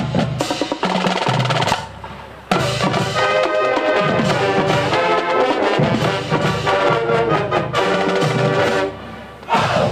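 Marching band playing a parade number: snare and bass drums alone for the first two seconds, then the brass section comes in over the drums. The music breaks off about nine seconds in.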